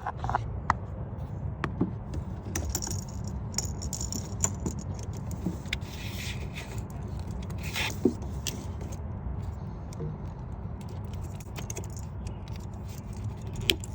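Hands working on a purge valve's hose and rubber boot in a car engine bay: scattered sharp clicks and light metallic and plastic rattling, over a steady low rumble.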